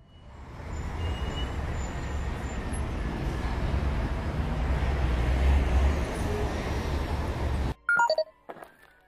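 Vehicle engine rumble sound effect: a steady, noisy rumble with heavy low end that builds over the first second and cuts off suddenly near the end. Then come a few short electronic computer beeps.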